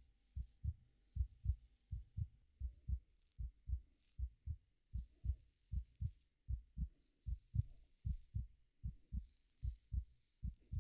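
Heartbeat sounds: steady paired 'lub-dub' low thumps, a little over one beat a second. Over them come soft intermittent rustling and brushing of hair being played with.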